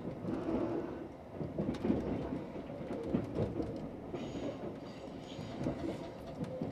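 Running noise heard inside a moving limited express train: the rumble and rattle of wheels on the track, with a brief hiss about four seconds in.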